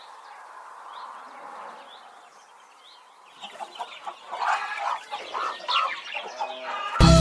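Chickens clucking in short, irregular calls that start about three and a half seconds in, after a few seconds of faint hiss.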